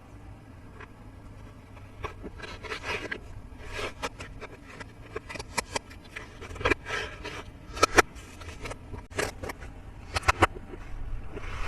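Hands handling the plastic pieces and packaging of a Peppa Pig treehouse and fort toy playset: an irregular run of sharp clicks and taps with short scraping rustles, the loudest click about eight seconds in.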